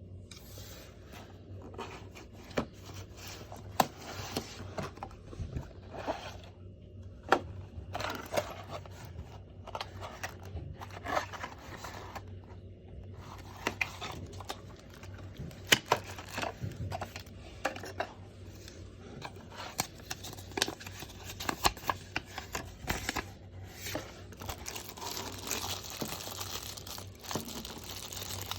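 A wristwatch's packaging being unwrapped and opened by hand: tearing, crinkling and rustling, with many scattered sharp clicks and knocks.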